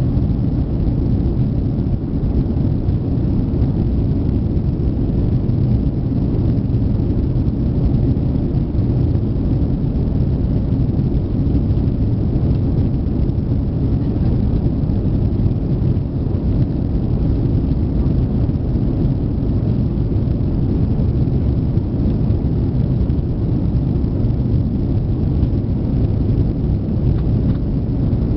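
Steady low rumble inside the cabin of an Airbus A340-300 climbing after takeoff: its four CFM56 jet engines at climb power and the rush of air past the fuselage, unchanging throughout.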